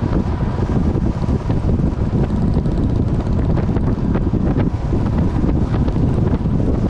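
Heavy, steady wind buffeting the microphone of a camera on a motorcycle riding at speed, with the motorcycle's engine running underneath.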